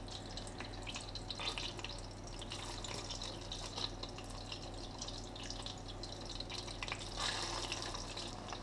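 Crumbed flathead fillets sizzling and crackling as they shallow-fry in hot oil and butter, a fine patter of small pops that grows a little denser about seven seconds in.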